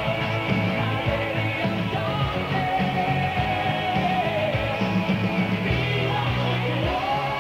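Rock band playing: drums and a bass line under a held lead line that slides up in pitch near the end.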